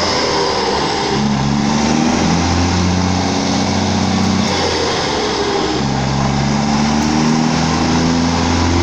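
Volkswagen Constellation 24.250 truck's diesel engine pulling up through the gears, its pitch climbing, dropping with a gear change about halfway, then climbing again. Under it is a drone from the rear differential, which the mechanic takes as a sign of a worn pinion bearing.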